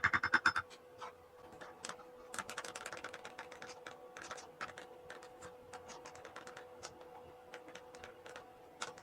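A quick cluster of loud clicks right at the start, then runs of light, sharp clicks and taps, thickest a couple of seconds in, over a faint steady hum.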